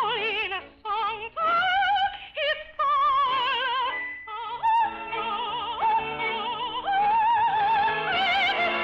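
An operatic soprano sings an operetta melody with wide vibrato, holding long notes, over an orchestra.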